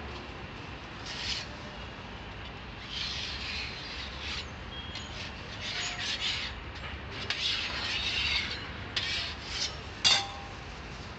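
Metal spatula scraping over a jianbing crepe on a round griddle in a run of short rasping strokes as the crepe is loosened and folded, ending with a sharp metal clack near the end.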